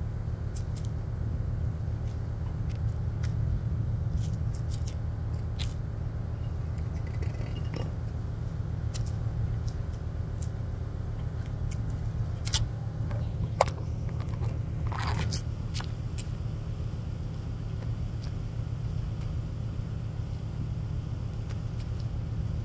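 Steady low machine hum under scattered clicks and scrapes from a fishing rod and reel as a fish is reeled in. The clicks come thickest a little past the middle.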